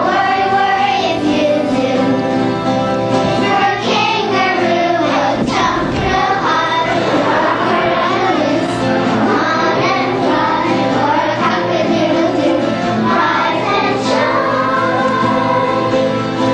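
A group of young children singing a song together, with no break.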